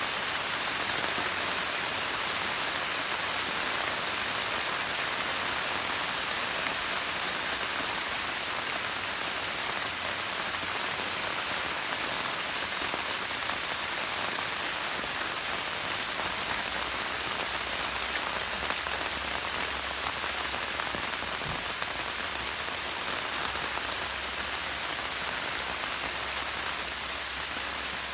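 Steady rain falling and pattering on foliage and surfaces.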